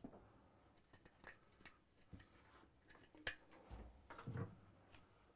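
Near silence with a few faint, scattered clicks and light knocks of wooden sauna parts being handled and set against the wall.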